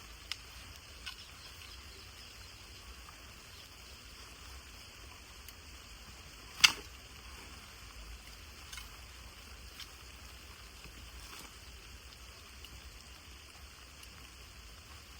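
Steady hiss of light rain falling, with a few scattered sharp taps and clicks, one much louder than the rest about halfway through.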